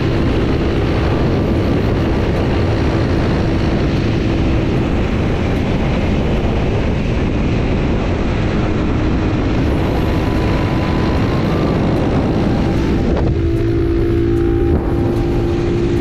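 Wind buffeting an action camera's microphone on a moving motorcycle: a loud, steady rush with a steady hum from the ride beneath it. About thirteen seconds in, the wind rush eases and the hum stands out more.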